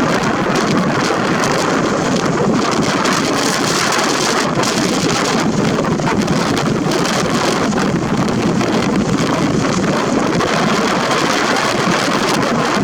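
Loud, steady wind noise buffeting the camera's built-in microphone.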